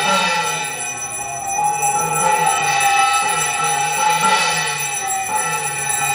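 A handheld puja bell (ghanta) rung continuously, a steady high ringing, with voices chanting beneath it.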